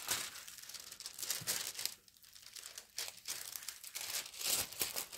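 Clear plastic protective film on a diamond painting canvas crinkling as it is lifted from the sticky canvas and handled. It comes in irregular bursts, with a short lull about two seconds in.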